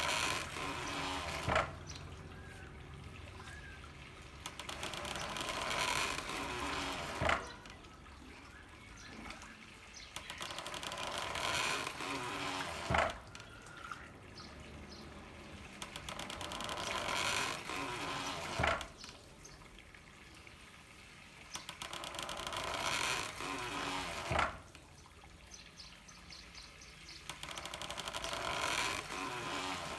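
Handmade water-powered corn mill at work. Water from a bamboo pipe runs and swells for several seconds, then the mill gives a single sharp knock. The cycle repeats steadily about every six seconds.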